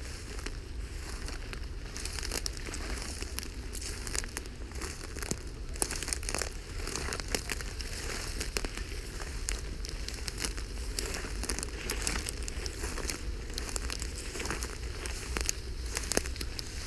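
Dry grass and brush stems rustling and crackling as a walker and a leashed wolf push through tall dry grass, with many irregular sharp crackles over a steady low rumble.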